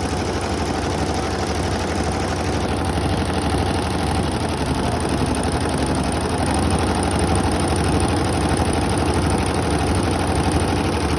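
Computerized embroidery machine running and stitching at a fast, steady rate, sewing the correct colour over tape laid on a wrongly embroidered section.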